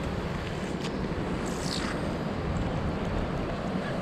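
Steady wind noise on the microphone and falling rain, with a brief falling swish about one and a half seconds in as a wet magnet-fishing rope is hauled in hand over hand through gloved hands.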